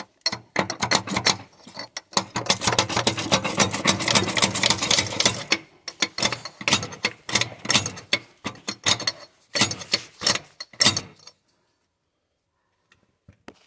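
Rapid metallic ratcheting clicks in bursts from a ratchet wrench. The clicking is near-continuous from about two to five and a half seconds in, then comes in shorter bursts and stops about eleven seconds in.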